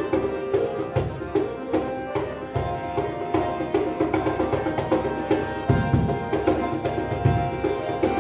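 Live instrumental music: a cajón slapped by hand in a quick, steady beat, with a harp and other instruments holding melody notes over it.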